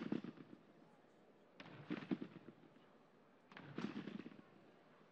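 Competition trampoline beds thudding as two gymnasts land and rebound in unison. There are three sudden landings about two seconds apart, each with a short, ragged tail.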